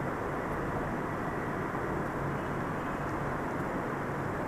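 Steady, even background noise with no distinct events: the room tone of the lecture recording, a dull hiss and rumble that stays at constant loudness.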